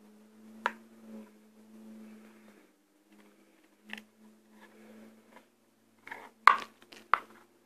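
Clicks and light handling noise of a Sony Xperia E1's plastic back cover and battery being worked by hand. A few sharp clicks are spread out, with a quick cluster near the end and the loudest about six and a half seconds in, over a faint steady hum.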